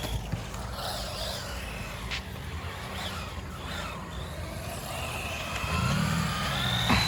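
Electric motors of small RC trucks whining, rising and falling in pitch as they speed up and slow down, over a low rumble, with a sharp knock about two seconds in.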